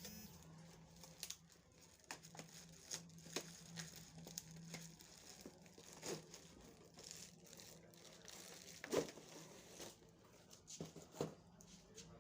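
Packaging crinkling and tearing as a tripod is unboxed: quiet irregular rustles and crackles, with a sharper click about nine seconds in.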